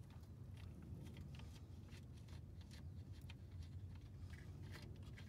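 Faint, quick metallic ticks and clicks of a socket wrench and extension being turned by hand to back off a small nut, over a low steady hum.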